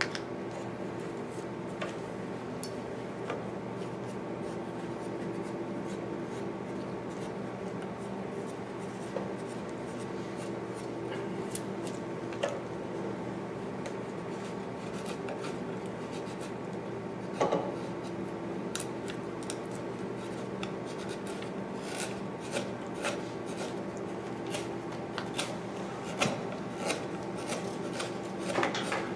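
Carving chisel paring white cedar by hand: short slicing and scraping cuts, few at first and coming faster through the second half, over a steady low hum.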